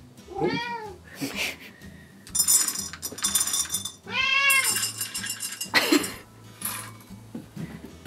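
A cat meowing twice for its food, about four seconds apart, each meow rising and then falling in pitch. Between and after the meows, dry cat kibble rattles in a plastic scoop, with a few sharp clicks.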